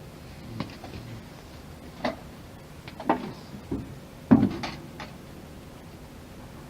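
About seven irregular knocks and clicks over five seconds, the loudest about four seconds in, as of tools and containers being handled during urethane waterproofing work.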